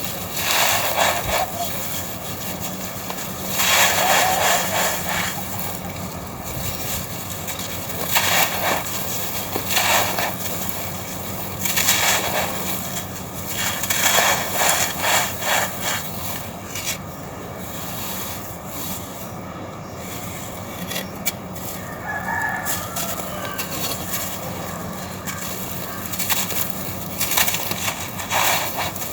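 Red sand-and-cement chunks crumbling in repeated crunchy, gritty bursts every few seconds. A rooster crows briefly in the background a little after the middle.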